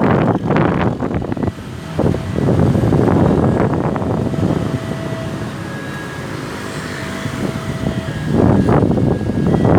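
Road traffic going by with wind buffeting the microphone, louder near the start and again near the end; no siren is sounding.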